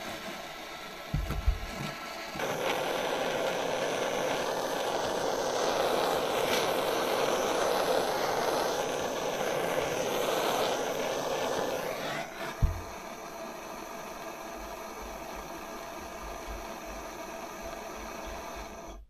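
A gas blowtorch running with a steady roar for about ten seconds, starting and cutting off abruptly. A thump comes just before it starts and another just after it stops.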